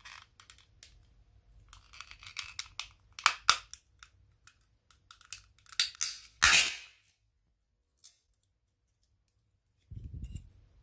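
Plastic casing of a Logitech Z906 remote control being pried open: a run of sharp clicks and scraping, with the loudest snap about six and a half seconds in, as the plastic clips give way. A low rumble of handling noise follows near the end.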